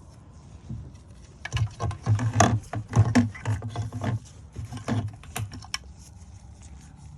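Clicks, taps and rattles of a plastic wiring connector being handled and fitted to a fuel pump module's top, a cluster of quick knocks between about one and a half and six seconds in, over a low steady hum.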